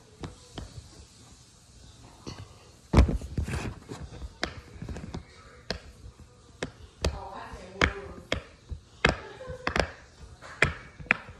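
Silicone pop-it fidget toy bubbles being pressed one after another, a string of irregular sharp pops, with a heavier thump about three seconds in.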